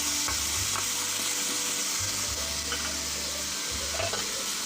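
Chopped potato, cauliflower and flat beans sizzling steadily in hot oil in a pan as they are stirred, with a few faint clicks.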